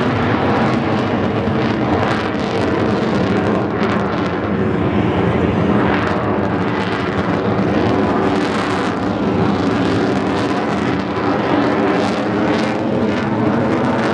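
F-35 fighter's single Pratt & Whitney F135 afterburning turbofan producing a loud, steady thrust noise with a low, rumbling drone that holds at an even level.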